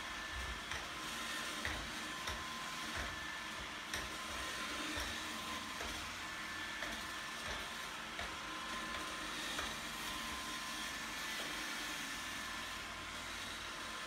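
iRobot Roomba 871 robot vacuum running as it drives across a tiled floor: a steady whir from its motor and brushes with a faint high whine, and a few light clicks.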